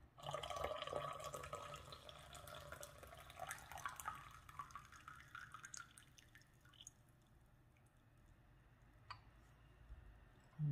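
Brewed oolong tea poured in a thin stream from a ceramic teapot into a glass pitcher. The splashing note rises in pitch as the glass fills, then the stream thins to drips and stops about six seconds in. A light click follows near the end.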